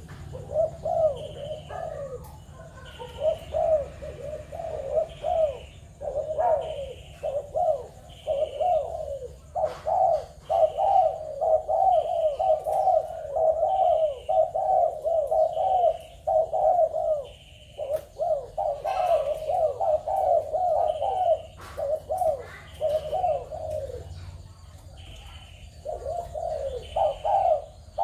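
Spotted doves cooing over and over in quick runs of short, curving notes, nearly without a break.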